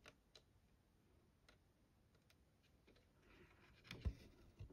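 Near silence broken by the faint handling sounds of hand cross-stitching: a few soft scattered ticks, a brief rustle about three seconds in, and two low knocks near the end.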